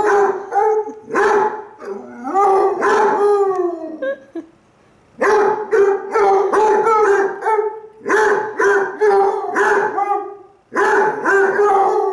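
Two basset hounds baying back and forth in bouts of short barking howls, one with its head thrown back. A long call falls in pitch about four seconds in, followed by a brief pause before the baying starts again.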